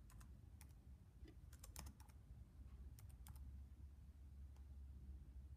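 Quiet, irregular keystrokes on a Dell laptop keyboard as a few characters are typed, over a steady low hum.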